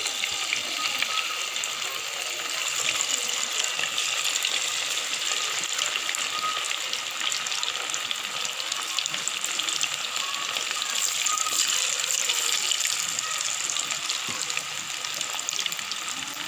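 Marinated chicken pieces deep-frying in hot oil: a steady, dense sizzle with fine crackling throughout.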